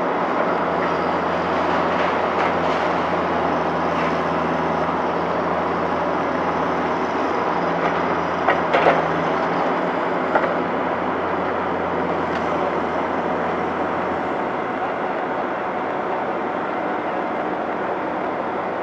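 Diesel construction machinery running steadily at a street worksite, a low engine hum over a constant wash of machine and traffic noise, with a few sharp clanks scattered through the first two-thirds. The engine hum drops away about three-quarters of the way through.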